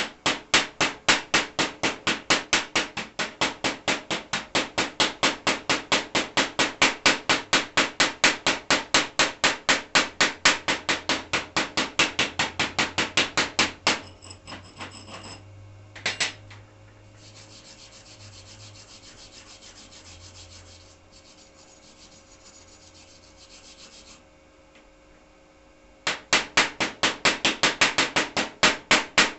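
Rapid, even scraping strokes on steel, about four a second, as when cleaning a weld. They stop about halfway through, leaving a faint steady hiss with a low hum, and start again near the end.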